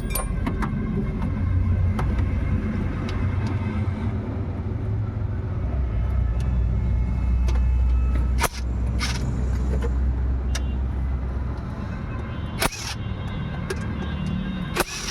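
Renault Kwid's three-cylinder petrol engine running at a steady idle, a low rumble, with a few sharp knocks from work on or around it, one about halfway through and two near the end.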